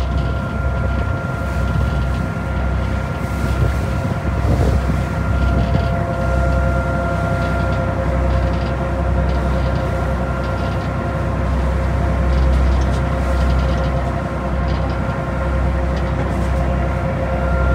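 Tour boat's engine running steadily, a low rumble with a steady whine over it, with wind buffeting the microphone on the open deck.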